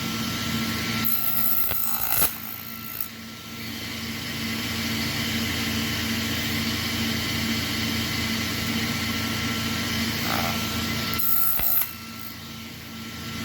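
Table saw motor running with a steady whine and hum. Two short bursts of bright hissing noise come about a second in and near the end.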